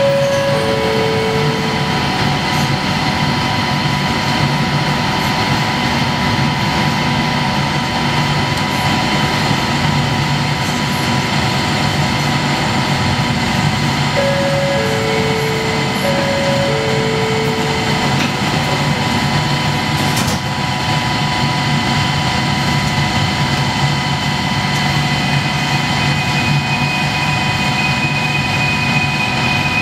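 Steady hum inside a Kelana Jaya Line LRT car standing at an underground platform, with a two-note high-low chime near the start and twice more a little past the middle. A steady high tone joins near the end.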